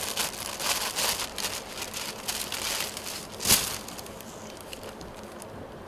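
Rustling and crinkling of a packed cloth suit and its plastic wrapping being handled and unfolded, with a sharp snap of the material about three and a half seconds in; the handling quietens after about four seconds.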